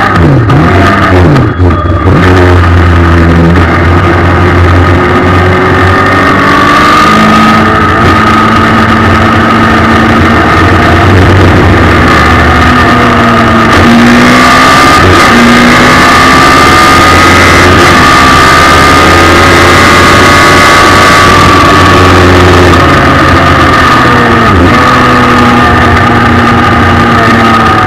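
Suzuki Hayabusa 1300 inline-four motorcycle engine with an Akrapovic exhaust, powering a race car at speed on track. It is loud throughout, its revs falling under braking and climbing again through the gears several times.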